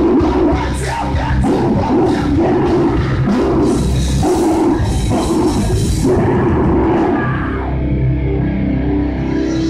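Heavy metal band playing live: distorted electric guitars, bass and drums, with harsh screamed vocals. About seven seconds in, the drums and cymbals drop out, leaving the guitars and bass holding notes.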